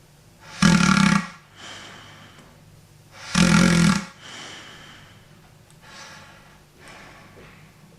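Balloon-and-pipes airway model snoring with its nasal passage blocked. Two loud snores come about two and a half seconds apart, with softer airy breaths between them.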